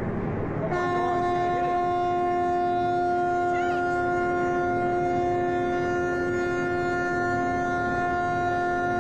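A cruise ship's horn sounds one long, steady blast starting abruptly about a second in and held without a break: a warning as the ship bears down out of control on the dock.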